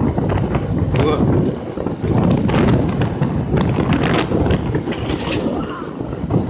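Rumble of a vehicle moving along a road, with wind battering the microphone and a few light rattles.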